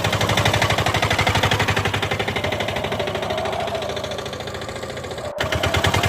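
Vehicle engine running with a fast, even pulse, growing slightly quieter, cut off abruptly about five seconds in and picking up again just before the end.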